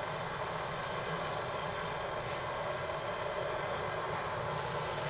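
Handheld propane torch burning with a steady hiss, its flame played over a magnesium chainsaw crankcase half to heat and expand it so the case slips over the crankshaft bearing.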